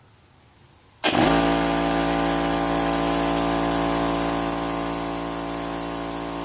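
Air compressor, running on fresh oil with Energy Release additive, switches on about a second in and runs steadily with a hum of many even tones. A faint high whine rises in pitch as it comes up to speed.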